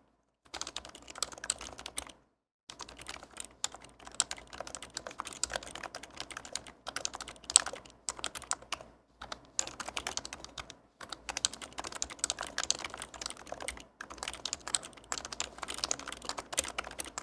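Steady fast typing on an HHKB Pro 2 keyboard with Topre switches, silenced with Hyperspheres and unlubed: dense runs of muted key clicks with a few brief pauses.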